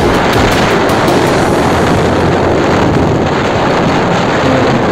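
Steady, loud rush of wind buffeting the microphone together with road noise from a vehicle driving along the highway.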